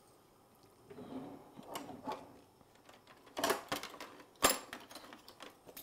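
Quiet kitchen handling noise: light rustle, then a few sharp clicks and knocks, the loudest about three and four and a half seconds in, as a glass sauce bottle and a ring of metal measuring spoons are handled.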